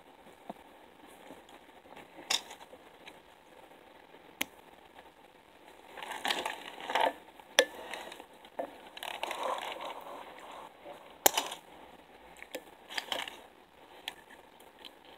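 Handling noise close to the microphone: rustling and crinkling in two stretches of a second or so, with several sharp clicks scattered between, as hands work fly-tying materials.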